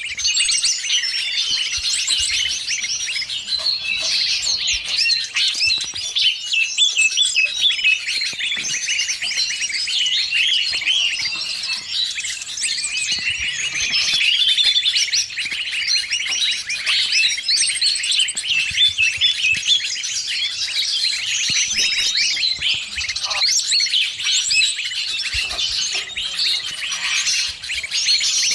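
Dense, continuous chorus of many small birds chirping and twittering over one another, a mixed 'noisy bird' lure recording combined with cucak ijo (leafbird) calls.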